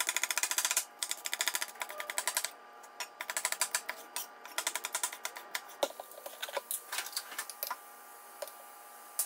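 Kitchen knife chopping onion and then yellow bell pepper on a wooden cutting board. A fast run of chops, about ten a second, for the first couple of seconds, then shorter runs and scattered taps that thin out near the end.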